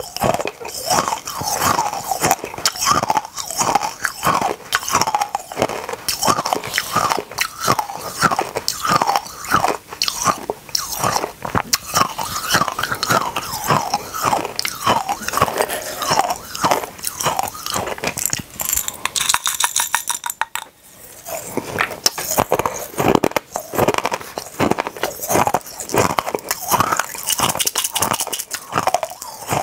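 Close-up crunching and chewing of tiny hard mini candies, a dense run of sharp crunches that keeps going with only a brief pause about two-thirds of the way in.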